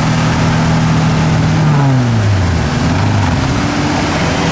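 Off-road SUV engines running in the mud, a steady drone whose pitch drops over about a second, a little under two seconds in, while a second engine note rises slightly.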